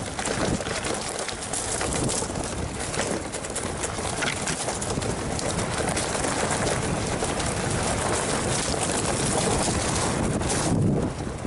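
Enduro mountain bike riding down a rough trail: continuous wind buffeting on the microphone and tyre rumble, with many quick rattles and clicks from the bike, easing briefly near the end.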